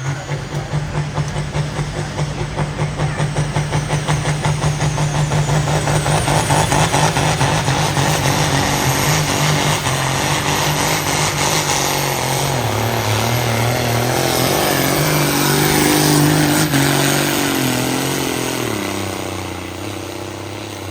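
A pulling vehicle's engine running hard under full load down the track, with a fast pulsing rhythm through the first half. Its pitch drops about twelve seconds in and again near the end, as the sound fades.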